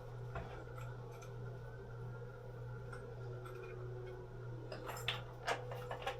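Quiet room tone with a steady low hum and a few faint clicks, then small taps and knocks near the end.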